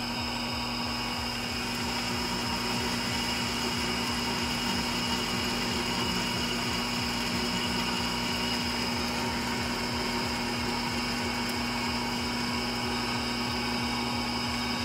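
Emco Maximat V10 metal lathe running at 315 RPM while turning a 2-inch bar at a 15-thousandths depth of cut beside a follow rest: a steady motor and gear hum with the cutting noise under it, at an even level throughout. The cut goes smoothly ("cuts like butter").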